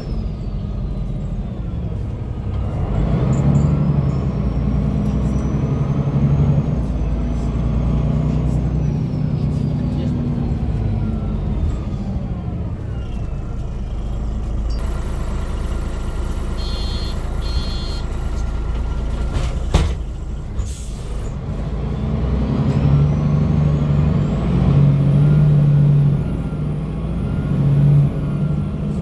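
Interior of a 2002 MAN NG313 articulated bus: its MAN D2866 diesel and ZF five-speed automatic gearbox pull hard through the gears, then ease off as the bus slows to a stop. Past the middle come a short run of electronic beeps and a hiss of air, and near the end the engine pulls away again through the gears.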